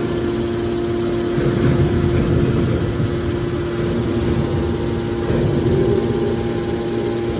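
Hydraulic power pack (electric motor and pump) of a scrap metal baler running with a steady hum. A rougher low rumble swells twice, about a second and a half in and again near six seconds.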